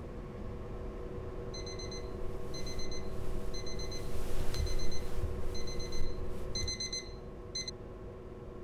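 Smartphone alarm beeping: short high beeps about once a second, starting about a second and a half in, coming faster near the end and cutting off as it is switched off. Bedding rustles as the sleeper rolls over partway through.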